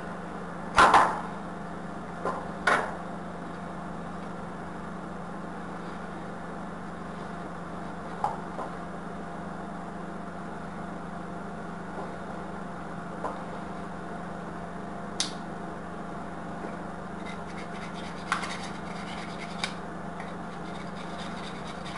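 Wooden frame slats being worked loose and lifted off a silicone mould, giving a few sharp knocks and clicks of wood, the loudest about a second in and another a couple of seconds later. A steady low hum runs underneath.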